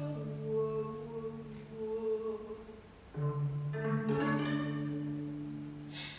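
Wordless vocal improvisation: several sustained sung tones layered over a steady low hummed drone. The drone drops out about two seconds in and comes back about a second later, and the voices fade away near the end.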